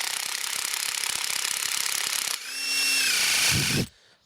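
Cordless drill turning a snapped-off screwdriver bit into the wood of a living tree, the bit grinding and chattering as it bites; about two and a half seconds in the drill runs up to a steady whine, then stops suddenly near the end. The bit is getting blunt and only partly wants to cut.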